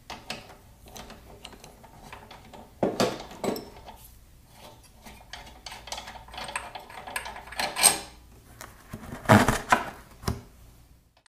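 Irregular light metallic clicks and clinks as loosened head bolts are unscrewed and lifted out of a Briggs & Stratton L-head lawn mower engine's cylinder head, with a few louder clinks as bolts are handled and set into a cardboard template.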